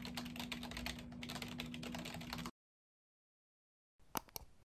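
Rapid typing on a computer keyboard, stopping abruptly about two and a half seconds in. Near the end come two sharp clicks of a mouse button.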